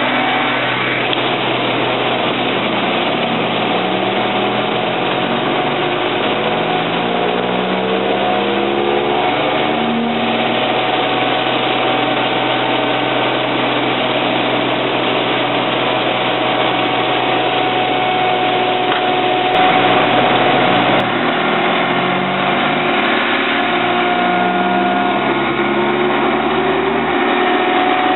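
Seismic vibrator (vibroseis) truck running, with a steady engine hum. Twice its vibrator sweeps, a hum that climbs in pitch over about six seconds: the first starts a few seconds in, the second about three-quarters of the way through.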